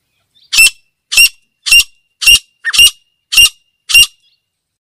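Female grey francolin calling: seven short, sharp, high notes in an even series, nearly two a second.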